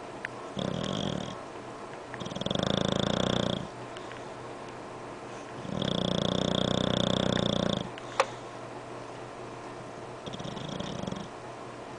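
English bulldog snoring in four breaths: a short soft snore, two long loud buzzing snores about 2 and 6 seconds in, and a short soft one near the end. A single sharp click comes just after the second loud snore.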